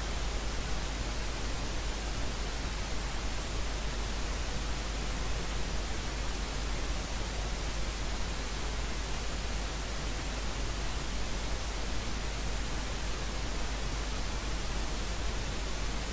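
Steady hiss with a low hum underneath, unchanging throughout: electronic background noise in the recording, with no other sound.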